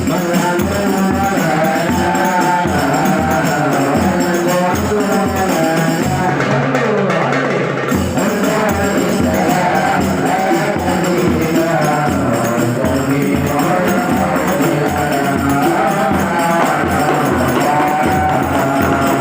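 Hadrah ensemble: a solo vocalist singing a flowing, ornamented melody over a steady beat of rebana frame drums.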